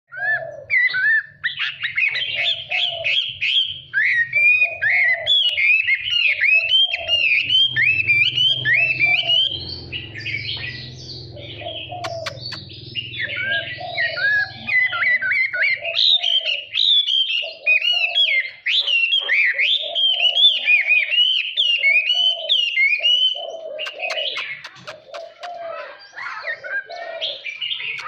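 Chinese hwamei (họa mi) singing a long, unbroken song of varied whistled phrases that rise and fall quickly, in the wild-type (giọng rừng) style.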